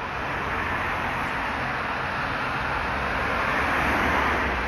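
Road traffic passing on a dual carriageway below, a steady rush of tyre and engine noise that swells to a peak near the end as cars go by.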